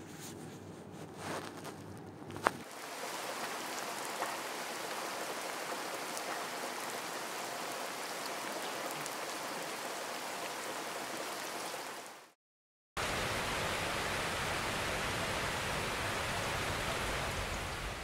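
Water pouring down a stone garden cascade into a pool, a steady rushing. It starts about two and a half seconds in, cuts out for a moment about twelve seconds in, then resumes.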